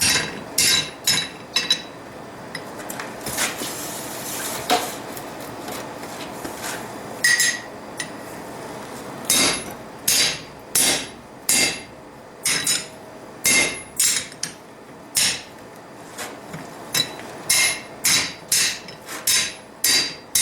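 Four-pound hand hammer striking hot steel on the anvil, forming the groove of a spring swage around a round-bar template, each blow with a short metallic ring. A quick run of four blows opens, then only scattered strikes, then steady blows about one a second from the middle on.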